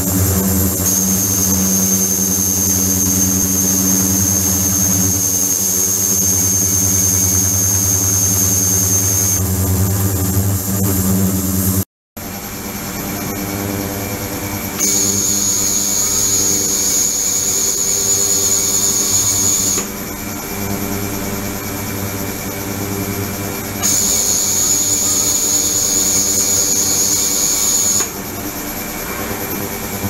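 Ultrasonic cleaning tank running: a steady electrical hum with a high, thin whine that switches on for several seconds at a time and off again, three times. The sound drops out briefly about twelve seconds in.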